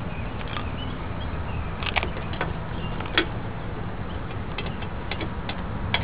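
A few sharp clicks and taps, scattered and irregular, the loudest about two and three seconds in, over a steady low rumble: hand tools being handled at a motorcycle's rear axle.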